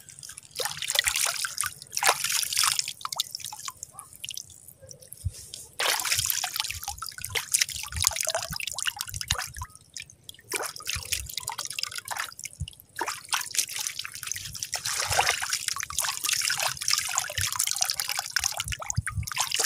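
Seawater trickling and dripping from cupped hands back into a shallow tide pool as a handful of lukot (sea hare egg strands) is rinsed, in irregular splashy spells with short pauses.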